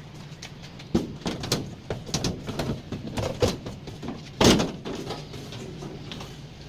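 Knocks and clatter from the dryer's parts and panels being handled during reassembly, with one loud knock about four and a half seconds in.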